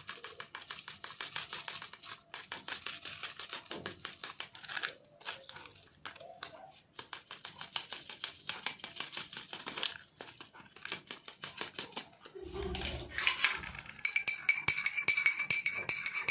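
A plastic sachet crinkling and rustling as kadha powder is shaken out of it into hot water. Near the end a spoon starts clinking steadily against a cup as it stirs.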